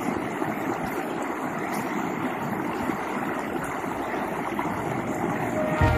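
Small creek rushing steadily over a rocky riffle. Music comes in just before the end.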